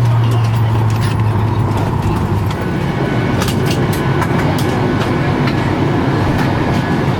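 Airliner cabin noise at the gate: a steady rushing of the aircraft's air system under a low hum that fades about two and a half seconds in, with scattered clicks and knocks.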